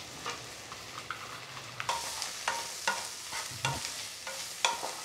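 Wooden spatula stirring shredded cabbage and onions in a kadai of hot oil, over a soft steady sizzle of the vegetables frying. Irregular knocks and scrapes of the spatula against the pan come more often from about two seconds in.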